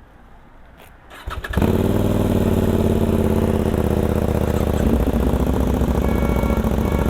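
Sportbike engine started about a second and a half in, catching at once after a few clicks and then running steadily.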